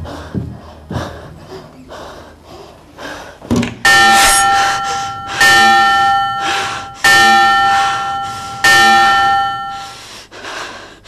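A person breathing fast and hard, about two breaths a second. From about four seconds in, a bell rings four times at an even pace, each stroke ringing on and fading before the next.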